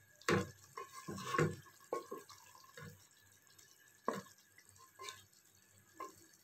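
Wooden spatula stirring thick chicken and capsicum curry in a pot: irregular wet squelches and light knocks of the spatula against the pot, several close together at first, then one about every second.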